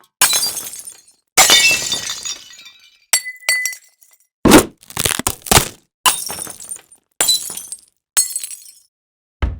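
A string of separate crash and impact sound effects, one after another with short gaps. Most are bright crashes with a shattering, quickly fading tail. A couple of short clinks come about three seconds in, and a few heavy thuds come in the middle.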